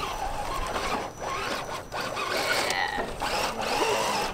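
Small electric motor and geared drivetrain of a 1/10-scale RC crawler truck whirring as it climbs a dirt slope, dropping out briefly a couple of times as the throttle comes on and off.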